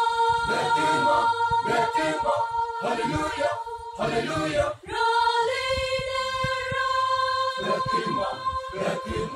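Choir singing a cappella, holding long sustained chords; after a short break about five seconds in, it moves to a new held chord pitched a little higher.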